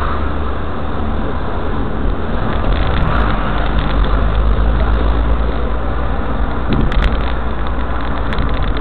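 Car engine and road noise heard from inside the moving car's cabin: a steady low rumble that grows a little louder about two and a half seconds in, with a few sharp clicks near the end.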